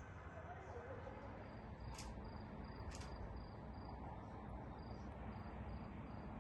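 Faint cricket chirping in short, evenly spaced high pulses, about three a second, over a steady low rumble, with two sharp clicks about a second apart.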